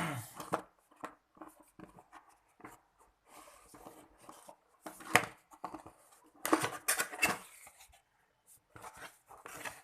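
Product packaging being handled: irregular rustles, light taps and scrapes, with a bigger flurry of rustling about five seconds in and again around six and a half to seven and a half seconds.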